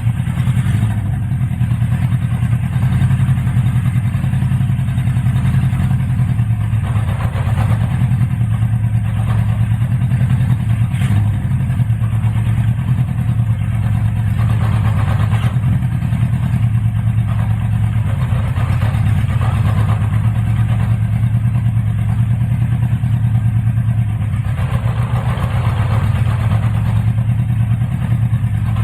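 Honda CB550F's air-cooled inline four-cylinder engine running steadily at a constant speed after being brought back to life.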